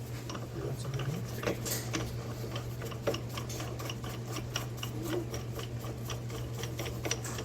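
Ratchet wrench clicking in a fast, even rhythm as it turns the nut of a threaded bearing-press tool, drawing a wheel bearing into a steering knuckle.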